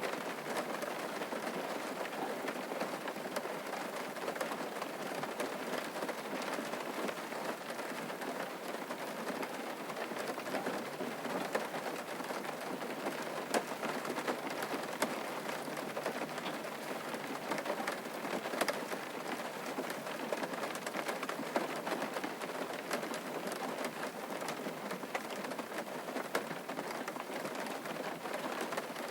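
Steady rain falling, a constant hiss of rain with many small drops ticking through it.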